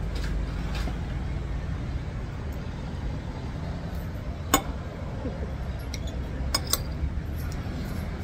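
Steady low rumble of traffic, with one sharp clink of a metal spoon against a plate about halfway through and a few lighter clinks near the end.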